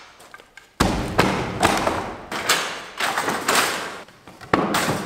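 Wooden boards being dropped and stacked, a series of hard wooden knocks and clatters, roughly two a second, starting about a second in.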